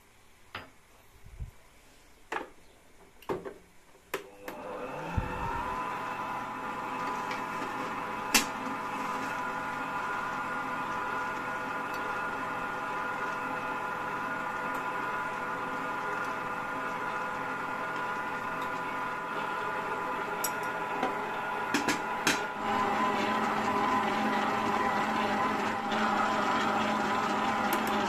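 Emsan stand mixer's motor starting about four seconds in and running steadily with a whine, driving its dough hook to knead dough as flour is added. A few clicks and knocks come before it starts, the odd sharp tick sounds over it, and it runs somewhat louder near the end.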